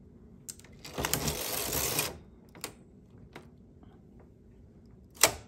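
Carriage of a Singer 328 Memo-Matic knitting machine pushed across the needle bed twice, each pass about a second long, knitting rows with the partial-knitting levers on for shoulder shaping. Faint clicks of needles or parts being handled between the passes.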